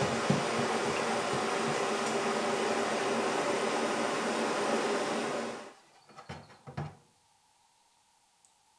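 A workshop power tool running steadily with a motor hum, then switched off and winding down about five and a half seconds in, followed by a few light knocks.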